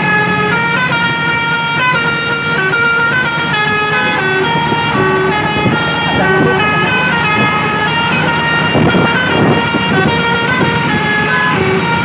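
A bus's telolet basuri multi-tone horn playing a continuous, winding melody of short held notes that change pitch every fraction of a second, over the low rumble of the moving bus.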